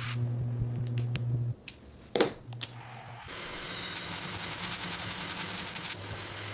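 Dental equipment: a steady low hum, a sharp click about two seconds in, then a hissing spray for about three seconds before the hum comes back.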